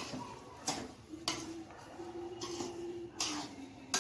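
A metal spoon stirring and scraping semolina halwa in a metal pan: several separate scrapes about a second apart as sugar is mixed in.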